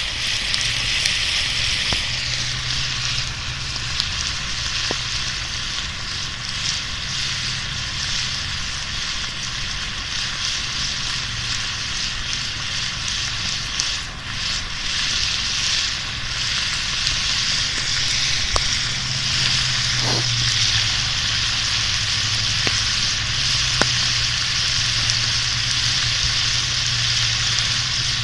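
Diced potatoes, bell peppers and onions sizzling steadily in a cast-iron skillet over a fire pit's coals, with a few sharp pops scattered through.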